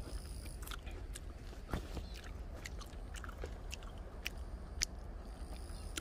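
Someone chewing freshly picked blueberries close to the microphone: irregular soft clicks and smacks from the mouth.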